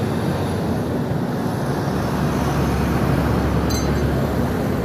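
Road traffic passing close by: steady engine and tyre noise, with a deeper low rumble building about halfway through as a vehicle draws near.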